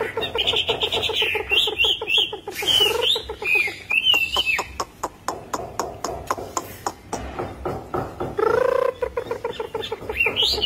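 Chinese hwamei singing a varied song: quick runs of repeated notes and wavering high whistles, a fast series of short clicking notes in the middle, and a longer, lower note near the end followed by rising high whistles.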